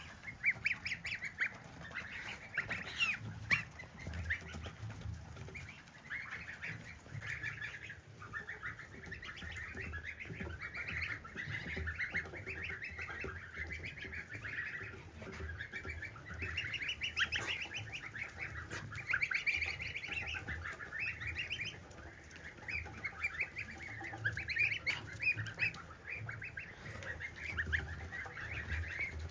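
A flock of goslings peeping, many short high calls overlapping in a continuous chatter, with domestic geese among them.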